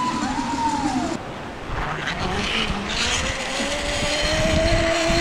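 Zipline trolley pulleys running along the steel cable with a whine that rises slowly in pitch over the second half, over wind rumble on the microphone.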